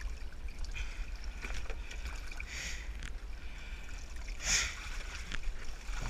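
Kayak paddle working in shallow water against a rocky bank: two short splashes, the second about four and a half seconds in and the loudest, and a few light knocks. A steady low rumble of wind on the microphone runs underneath.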